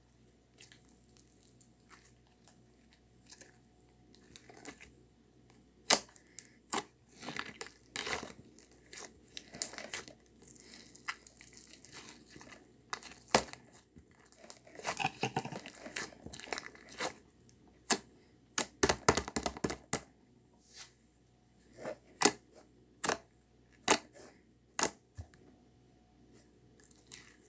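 Slime being handled, pressed and stretched: irregular sharp sticky pops and clicks, with bursts of crackling, the longest about halfway through.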